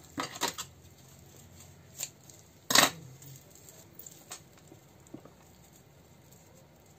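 Quiet handling of raffia and fabric on a cutting mat: a few light rustles and small clicks, with one sharp click about three seconds in.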